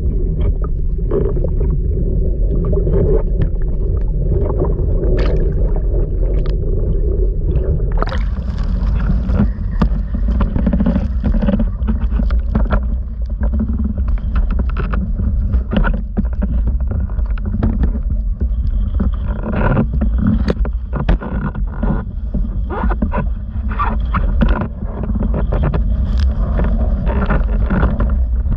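Water sloshing and rumbling around an action camera mounted low on a windsurf board, muffled while the camera is partly under water; about eight seconds in it opens up into splashing with many knocks and clatters as the board bumps against and is pulled onto a plastic floating dock.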